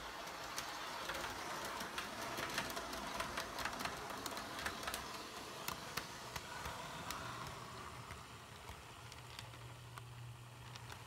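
Model train rolling along sectional track, its wheels clicking irregularly over the rail joints. The locomotive's electric motor hum comes in low about seven seconds in and grows louder as it approaches.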